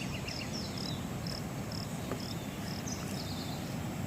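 An insect, cricket-like, chirping in a steady rhythm of short high chirps, about two a second, with a few brief falling high notes among them over a low rumble.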